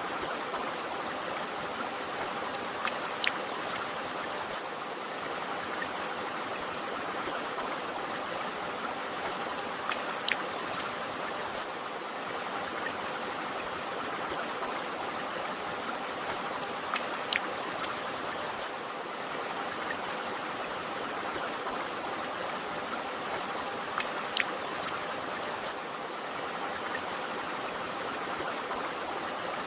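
Flowing river water running steadily, with a few sharp water plinks about every seven seconds.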